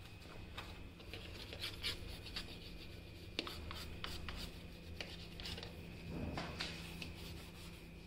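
A small vinegar-dipped brush scrubbing stains on a dishwasher, in short irregular scratchy strokes.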